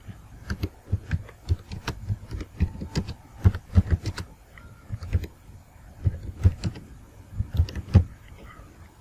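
Computer keyboard keystrokes typing a short phrase: irregular clicks, a few a second, with brief pauses between bursts.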